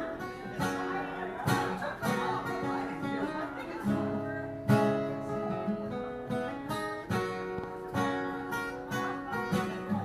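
Acoustic guitar strumming chords on its own, in an instrumental break between sung parts of a song, with steady, evenly paced strokes.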